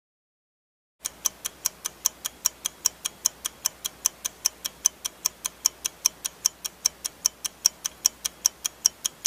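Countdown timer sound effect: a clock ticking quickly and evenly, about four to five ticks a second, starting about a second in.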